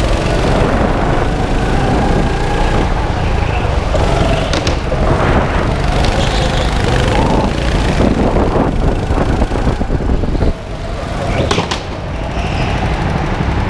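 Go-kart engine running at speed, heard from on board, with the steady rumble and rattle of the kart on the track. Two sharp knocks, about four and a half and eleven and a half seconds in, and the engine sound dips about ten and a half seconds in.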